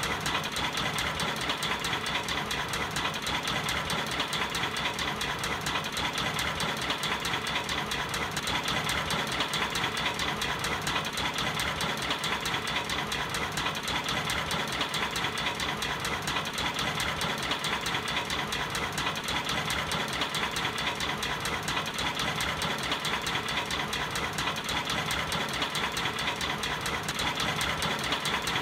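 Small electric toy motor running steadily, turning a miniature sugarcane juice machine's flywheel and rollers by a thin belt: an even, continuous whir.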